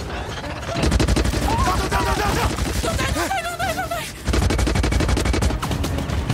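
Film battle sound effects: rapid, sustained gunfire from a giant robot's arm cannon. It starts about a second in and breaks off briefly about four seconds in before resuming. A wavering, warbling cry rises over the firing in the middle.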